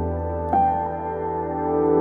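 Soft new-age background music: a held low bass note under gentle sustained notes, with a new chord entering about half a second in.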